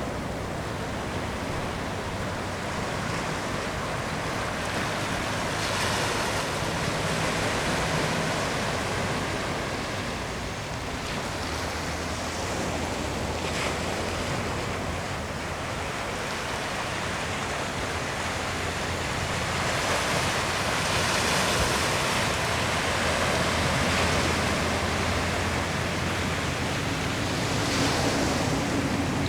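Ocean waves washing in a steady surf rush, swelling louder a few times, with wind buffeting the microphone.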